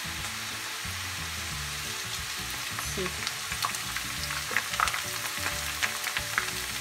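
Gram-flour-and-rice-flour-coated okra deep-frying in hot oil on a high flame: a steady sizzle, with sharp crackles and pops growing more frequent from about three seconds in.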